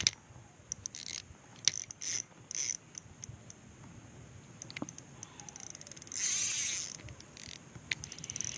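Fishing reel clicking and ratcheting in short bursts while a hooked trout is played on light line: the drag giving line and the reel being cranked in. A longer burst of ratcheting comes about six seconds in.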